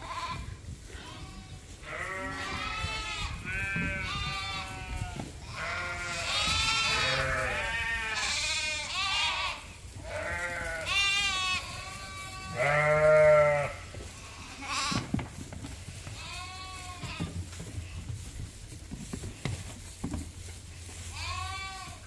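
Dorset sheep bleating, several animals calling over one another in a string of separate calls. The loudest, a lower-pitched bleat, comes a little past the middle.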